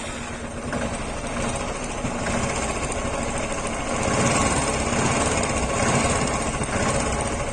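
Royal Enfield Classic 350's single-cylinder engine idling steadily, just after repair work on its cylinder-head tappet noise, and a little louder from about four seconds in.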